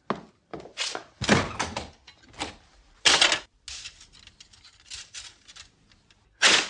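A run of irregular thuds and knocks, a dozen or so, with louder bangs about a second in, about three seconds in and near the end.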